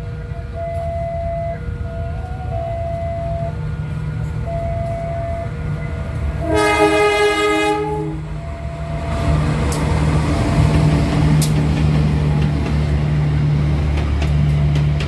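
CC203 diesel-electric locomotive's horn sounds one chord-like blast of about a second and a half, about halfway through. The locomotive and its train then pass close, with a loud, steady low engine rumble and rail noise.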